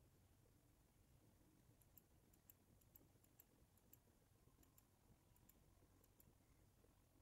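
Near silence broken by a string of faint, quick clicks, roughly a dozen and a half over about four seconds starting some two seconds in, of a computer mouse button being clicked repeatedly on a scrollbar arrow.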